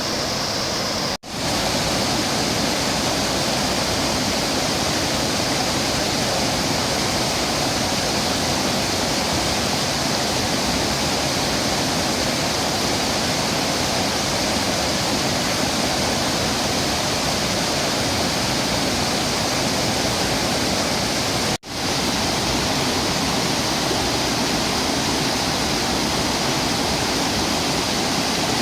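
Waterfall: a steady, full rush of falling water, cut twice by a momentary drop-out in the sound.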